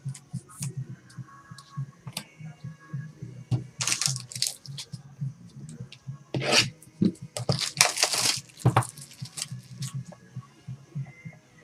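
Packaging and cards being handled while a trading card box is opened: several short bursts of tearing and rustling, the biggest about four, six and a half and eight seconds in, over a low hum.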